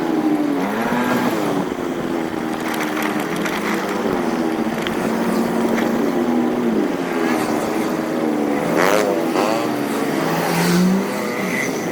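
A vehicle engine running on the move, its pitch drifting up and down with the throttle, with a quick rev about three quarters of the way through.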